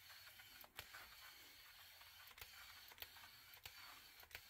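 Near silence: faint steady hiss of room tone with a few faint, short clicks.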